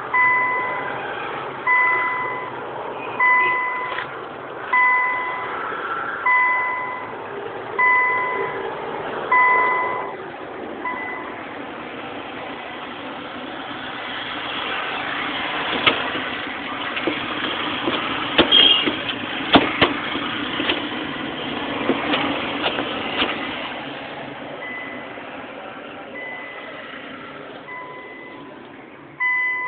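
Car alarm sounding a steady beep on a single pitch, one short beep about every second and a half for roughly the first ten seconds. The beeps then fade out, giving way to a stretch of sharp clicks and knocks over a rough noise. Faint beeping returns near the end, ending on one loud beep.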